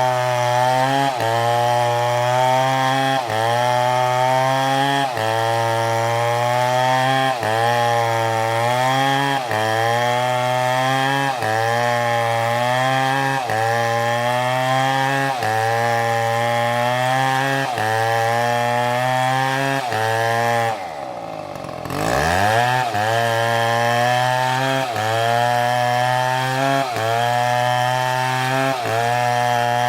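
STIHL MS720 two-stroke chainsaw running at high revs and cutting wood, its pitch sagging under load and recovering about every two seconds. About two-thirds of the way through it drops briefly toward idle, then revs back up and carries on cutting.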